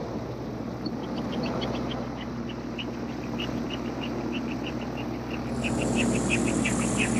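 Gyroplane engine running steadily at low power while the aircraft taxis on grass, with a regular high ticking at about three a second above it. The sound grows louder, with added hiss, about two thirds of the way through.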